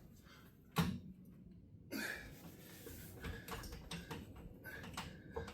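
Metal clicks and taps from handling tools and an engine block on an engine stand. One sharp knock comes about a second in, and a scatter of light clicks follows over the last few seconds.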